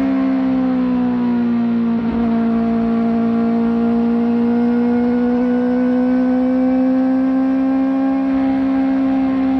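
Kawasaki ZX-4RR's 399 cc inline-four with a slip-on exhaust running at high revs. The pitch sags slightly, breaks briefly about two seconds in, then climbs slowly as the throttle is held open.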